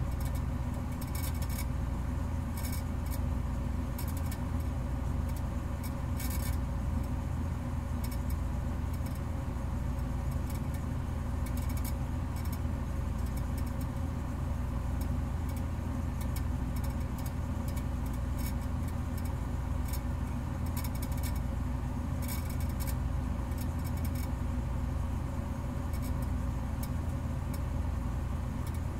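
Steady low mechanical drone with a constant pitch, sprinkled with short faint crackles that come and go.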